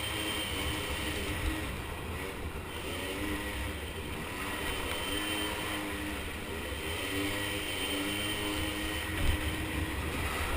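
Small 50cc ATV engines revving up and easing off again and again, their pitch rising and falling every couple of seconds over a low rumble. A short sharp knock stands out about nine seconds in.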